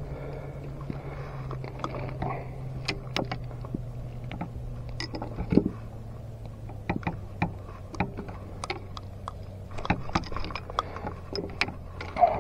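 Scattered clicks and light knocks of a landed redfish being handled and unhooked on a skiff, over a steady low hum.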